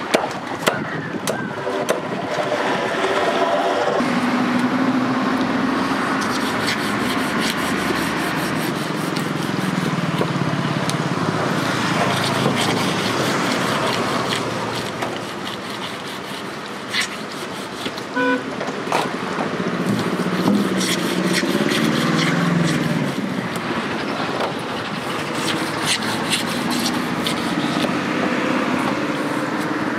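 Steady outdoor din of running vehicle engines, with a short horn toot about eighteen seconds in. Over it come clusters of sharp scraping clicks from a knife scaling a large fish.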